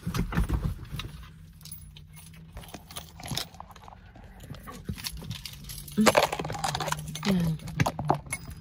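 The phone is handled close to its microphone: a scatter of sharp clicks, taps and rubbing, busiest at the start and again near the end. Underneath runs a low steady hum in the car.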